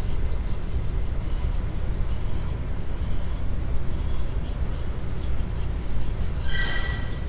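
Gloved fingers rubbing and scraping at the black deposit inside a cut-open steel car oil filter canister, in uneven scratchy strokes over a steady low hum.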